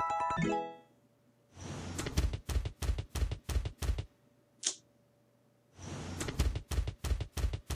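Online slot game sound effects from Buffalo King Megaways: two runs of quick, evenly spaced thuds, about three a second, as the spinning reels land symbol by symbol, with a brief swish between them. A short music phrase fades out just before.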